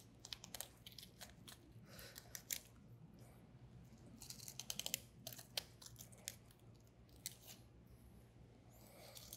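Faint, irregular crisp clicks and ticks of a filleting knife's blade running along a flatfish's bones as the fillet is sliced away from the frame, coming in short clusters. A low steady hum lies underneath.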